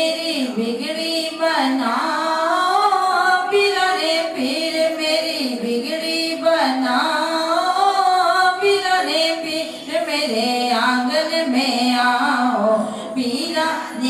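A woman singing a devotional naat with no instruments, in long held notes that bend and waver in pitch.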